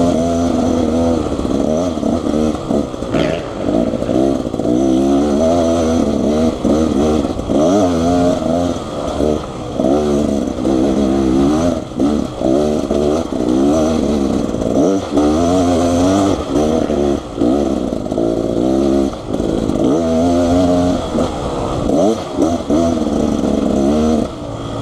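Dirt bike engine revving hard and easing off again and again, its pitch rising and falling as it pulls up a steep hill climb.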